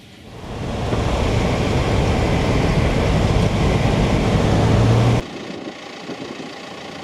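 Vehicle driving on an unsealed red dirt road: steady engine hum under loud rumbling road and tyre noise. It cuts off abruptly about five seconds in, leaving a much quieter steady hiss.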